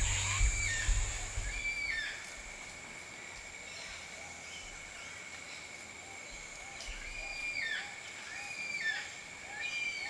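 Forest birds giving short repeated calls over a steady high insect drone. A low rumble fades out about two seconds in.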